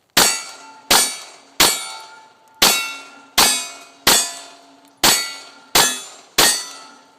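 Nine 9mm pistol shots from a Glock 17 fired at steel plate targets, each crack followed by the steel ringing, at a steady pace of a little under a second apart.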